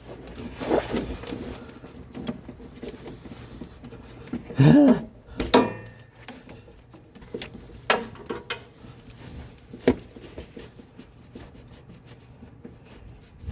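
Scattered clicks and knocks of a socket and metal parts as a loosened rear shock absorber nut is worked off, with a short pitched sound a little under five seconds in.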